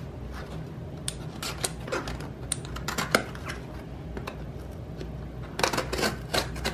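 A mail package being opened by hand: scattered clicks, crinkling and rustling of packaging, growing into a denser flurry of rustling near the end.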